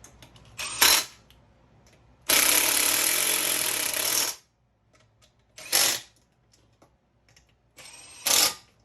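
Cordless power tool tightening the bolts of a case brace bracket on a GY6 scooter engine, in a few short bursts and one steady run of about two seconds near the middle.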